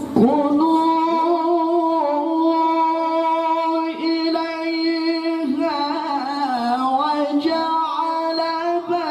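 A male qari's voice in melodic Qur'an recitation (tilawah), sung into a handheld microphone. He holds a long, steady note, breaks into a wavering, ornamented run a little past the middle, then settles onto another held note.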